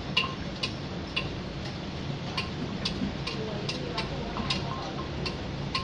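Rapid light clinks, each with the same short bright ring, coming unevenly about two to three times a second over a low background hum.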